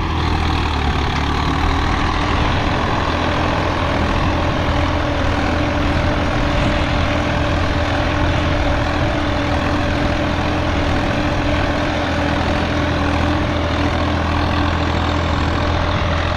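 Swaraj 855 tractor's three-cylinder diesel engine running steadily under load while pulling in the field.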